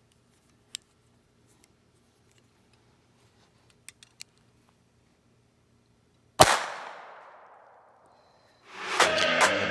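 A few light clicks, then a single .22 LR shot from a handmade Professor Parabellum Model 1 derringer about six seconds in, with an echoing tail that dies away over about two seconds. Guitar music begins near the end.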